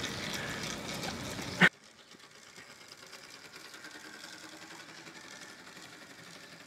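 Electric motor and chain drive of a bamboo quad bike whirring as it rides around, geared down through a bicycle cassette. A rushing noise covers it at first and ends in a sharp click about a second and a half in; after that the whir is faint.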